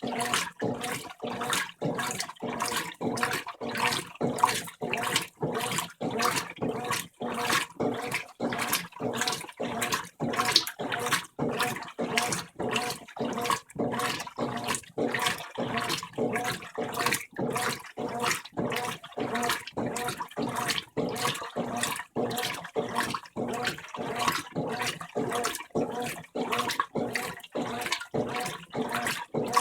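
Brastemp 15 kg top-loading washing machine in its rinse cycle at medium water level: the agitator swishes the water back and forth in an even rhythm of about two strokes a second.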